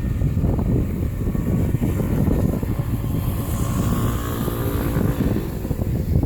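Steady, loud low rumble of a large vehicle passing, with faint pitched tones through the middle.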